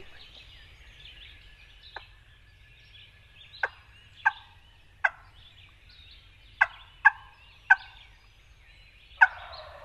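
A wild turkey gobbler calling after flying down from the roost: about eight short, sharp calls spread irregularly, the louder ones coming in the second half.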